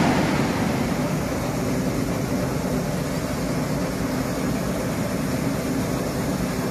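Continuous brush-screw potato washing and peeling machine running steadily: a steady hum under an even, noisy hiss as the screw churns potatoes along the trough. There is a brief louder swell right at the start.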